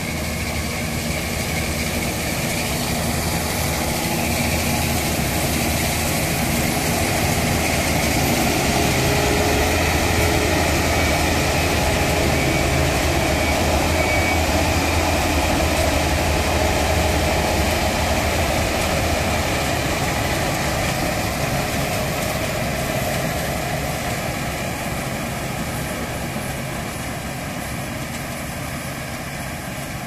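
Fieldking multicrop combine harvester at work cutting rice: its engine and threshing machinery run steadily, loudest about halfway through as it passes close, then fading as it moves away.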